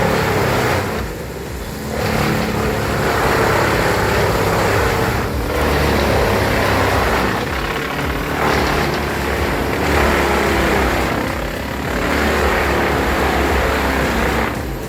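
Bandit 21XP wood chipper running under load as wood is fed through and chipped: a loud, continuous engine-and-chipping noise that eases off briefly several times between pieces.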